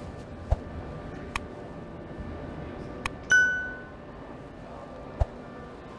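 Subway platform ambience: a steady hum with a few scattered clicks and knocks, and one high metallic ding about three seconds in that rings out for about half a second.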